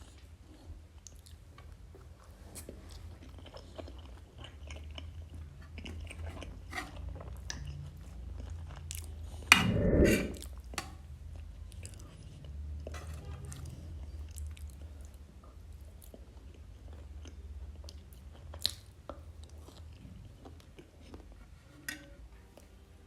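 Close-miked chewing and eating, with scattered small crunches and clicks, and one louder brief sound about ten seconds in.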